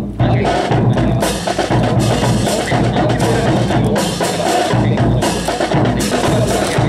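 Drum corps of bass and snare drums playing a continuous marching cadence.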